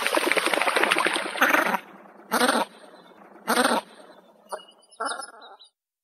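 White-winged scoter calling: a long, rapid rattling call for about the first two seconds, then four or five short calls spaced about a second apart.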